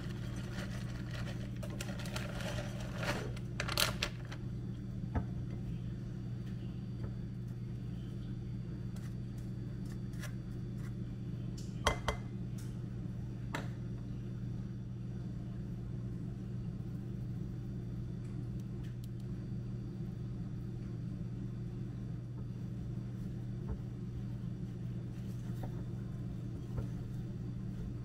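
Steady low mechanical hum with a few light clicks and knocks, the sharpest about twelve seconds in.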